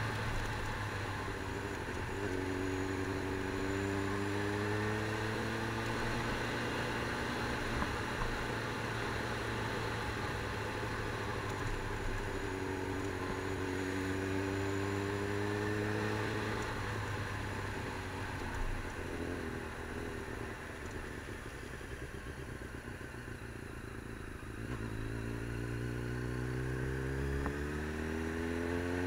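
A motor vehicle's engine running while under way, its pitch climbing three times as it accelerates, over a steady noise of travel.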